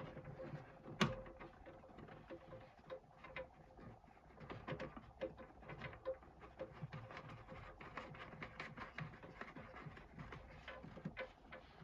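Scattered light clicks and taps of diesel heater parts being handled and fitted back together by hand, with one sharper click about a second in, over a faint steady hum.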